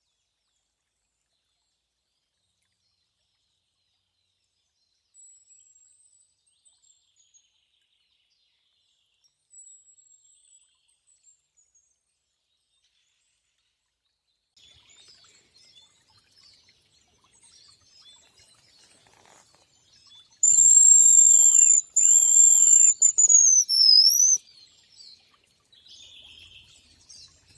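Hazel grouse whistling: faint high thin whistles a few seconds in, then about 20 seconds in a loud whistled call of two long, level high notes ending in a falling, wavering phrase.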